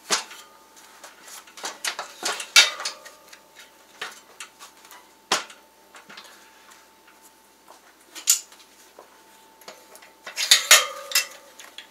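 Scattered metallic clinks and knocks, a few separate ones with a short ring and a quicker cluster near the end, from handling a wheel rim and a metal tire-changing tool while a dirt-bike tire is worked onto a spoked rim.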